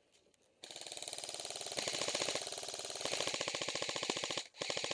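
Airsoft rifle firing long full-automatic bursts, a rapid even stream of shots. It starts about half a second in, breaks off briefly near the end, then fires again.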